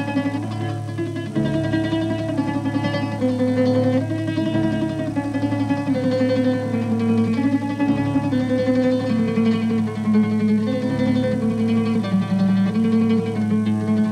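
Instrumental background music on plucked string instruments: a melody over a bass line that steps from note to note.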